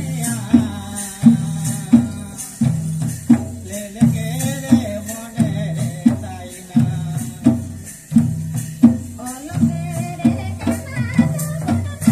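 Live Bhumij tribal folk music for the Karam dance: hand drums beat a steady rhythm of about three strokes every two seconds, with jingling percussion and voices singing a wavering melody over it.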